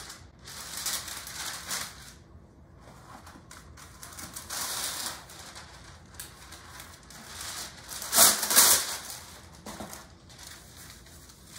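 Parchment paper rustling and crinkling as it is handled and pulled from the roll. A louder tearing just after eight seconds in as a sheet is ripped off the box.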